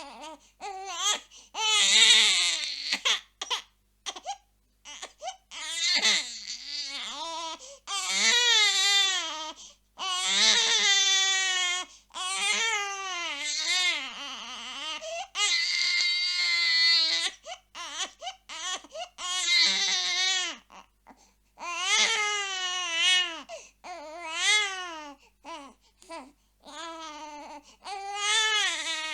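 Infant crying in repeated wails of one to two seconds each, the pitch wavering and breaking, with short gasping pauses for breath between them.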